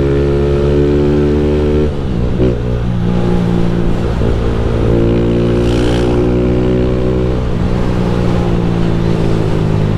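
Honda Fan 160 motorcycle engine running while ridden, a steady note that dips about two seconds in and shifts again about three quarters of the way through.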